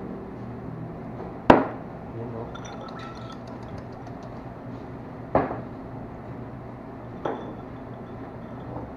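Glassware and dishes clinking: three sharp knocks, the first the loudest, about a second and a half, five seconds and seven seconds in, with light chinks between the first two.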